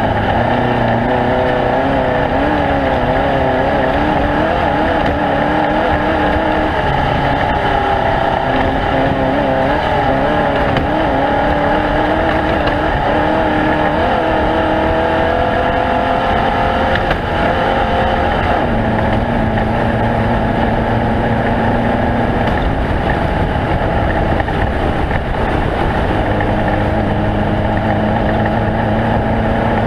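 Off-road race vehicle's engine running hard without a break, its note wavering up and down with speed and settling lower about two-thirds of the way through.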